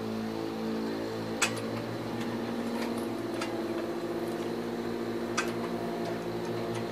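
Foot-operated metal stretcher working a 20-ounce cold-rolled copper standing-seam pan, its jaws giving a few sharp clicks, the loudest about a second and a half in. A steady low mechanical hum runs underneath.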